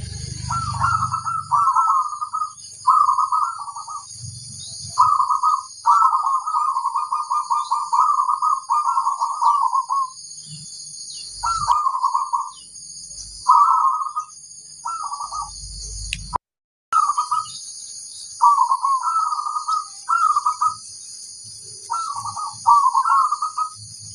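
Zebra dove (perkutut) cooing in a run of short, rapidly pulsed phrases with brief pauses between them, over a steady high-pitched background drone. The sound cuts out completely for a moment just past the middle.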